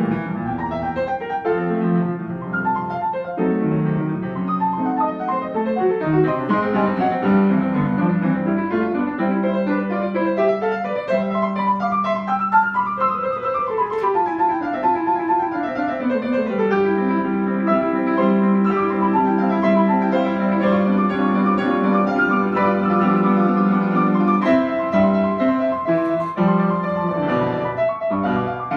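Grand piano played four-hands by two players: a run of notes climbs and then falls back about halfway through, over steady low notes.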